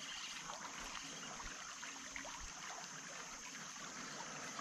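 Faint creek ambience: water quietly trickling, with a steady thin high hiss.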